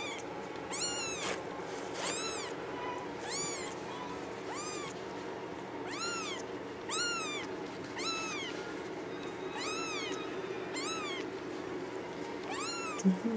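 Very young kitten, about 18 days old, mewing over and over: short, high-pitched calls that each rise and fall in pitch, roughly one a second.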